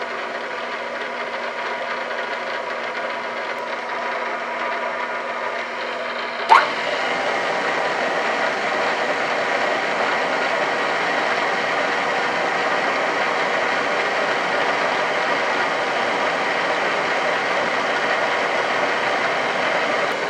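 Drill press running off a phase converter, a steady electric motor hum. About six and a half seconds in there is a sharp click, and after it the sound is louder and rougher while a letter Q twist drill bores into the bearing carrier.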